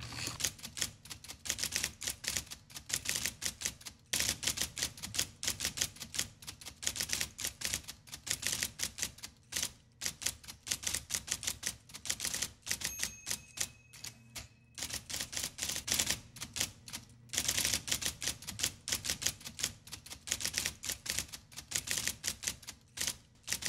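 Typewriter keys clacking rapidly in long runs, with brief pauses between lines, timed to text typing out on screen.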